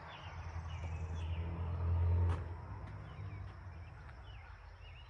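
A low engine hum that swells to about two seconds in, then drops away and fades, over a steady high trilling of insects with a few faint bird chirps.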